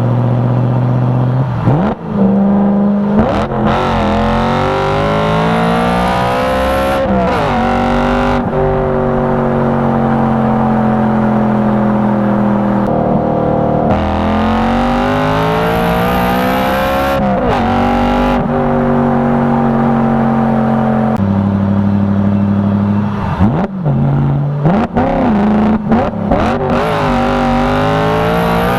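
BMW E92 M3's 4.0-litre V8 under acceleration: the revs climb and drop abruptly at each gear change, several times over, with a few steadier cruising stretches between. Near the end come a cluster of sharp cracks and brief dips in the engine note.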